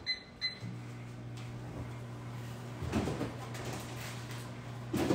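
Microwave oven keypad beeping twice, then the microwave starting and running with a steady low hum as it cooks. About three seconds in, a refrigerator door is opened.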